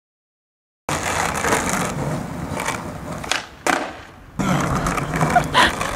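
Skateboard wheels rolling on a street, with several sharp clacks of the board popping and landing during kickflip attempts. The sound starts suddenly about a second in.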